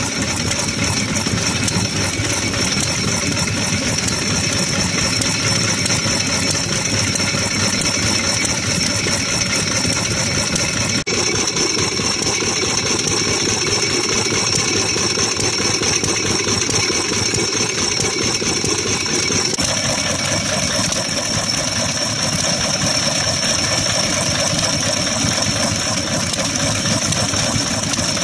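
Strong vintage Japanese kerosene stationary engine, a single-cylinder hopper-cooled engine, running steadily. A steady high-pitched whine sits above it, and the tone shifts slightly twice where the recording is cut.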